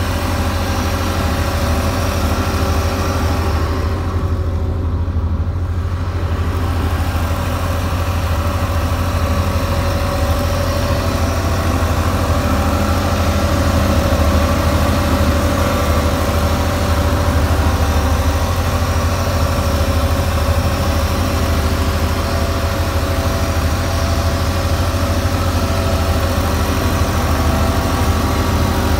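Tractor engine running steadily while driving a rear-mounted flail mower that is cutting grass, a continuous low drone. The higher part of the sound turns briefly duller about four seconds in.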